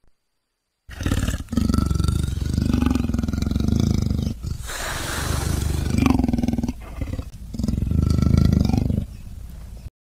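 Leopard growling: a series of long, deep, rasping growls with brief pauses, starting about a second in.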